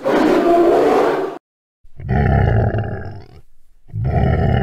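Polar bear roaring: one rough, noisy call about a second and a half long, followed by two shorter, deeper calls about two and four seconds in.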